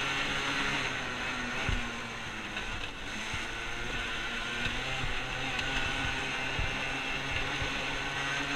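Arctic Cat ATV engine running at a fairly steady speed while being ridden across grass. Two short low thumps come about two seconds and six and a half seconds in.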